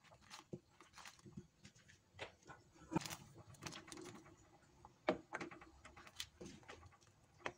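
Cooking clatter: a ladle knocking and scraping against a metal wok and potato chunks tipped in from a plastic basket, as irregular clicks and knocks, the loudest about three and five seconds in.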